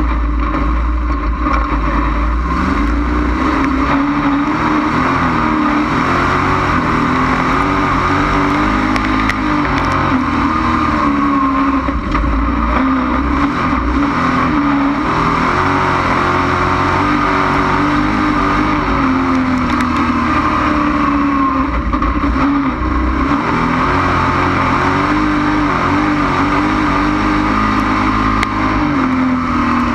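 Dirt-track race car's engine heard from on board, running loud, its pitch rising and falling as the throttle comes on and off around the oval, over a steady rush of wind and road noise.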